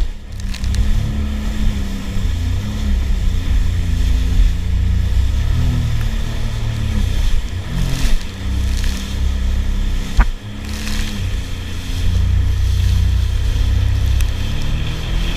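Sea-Doo personal watercraft engine running under way, its pitch rising and falling with the throttle over wind and water noise. A sharp knock comes about ten seconds in.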